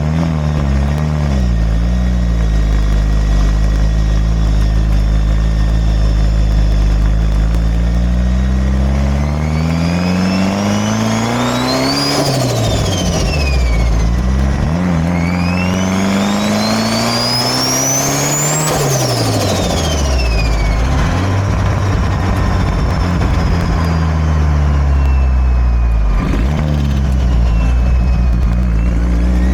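Mitsubishi Lancer Evolution VIII's turbocharged 4G63 four-cylinder running under load through a Garrett turbo. The engine pulls hard twice, each time with a rising turbo whine that falls away after the pull, the second pull around the middle and the longer of the two.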